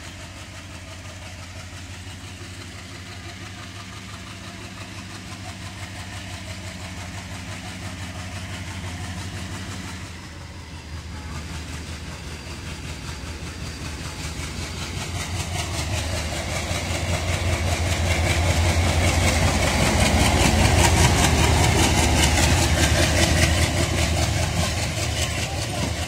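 WDM-3D diesel locomotive's ALCO engine pulling a passenger train away from the station, its low engine note growing steadily louder as it approaches and passes, loudest about two-thirds of the way through. The coaches' wheels rattle over the rails in the latter half.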